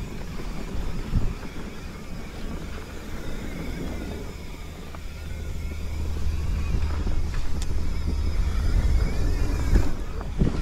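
Mountain bike rolling fast down a dirt singletrack: a steady rumble of tyres on dirt and wind on the microphone, with a few sharp knocks from the bike over bumps. It grows louder in the second half.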